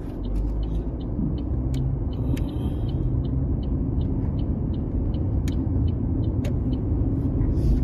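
Car pulling away from a stop and turning, heard from inside the cabin: a steady engine and tyre rumble that grows a little louder about half a second in, with the turn-signal indicator clicking evenly, about three clicks a second.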